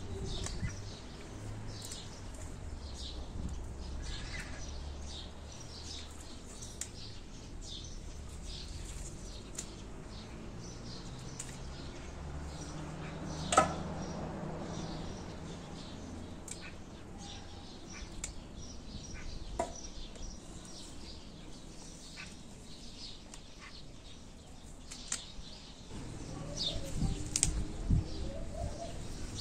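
Small birds chirping in short, scattered calls, over the rustle of leafy bean plants being handled as pods are picked off. There is one sharp click about halfway through, and the handling gets busier and louder near the end.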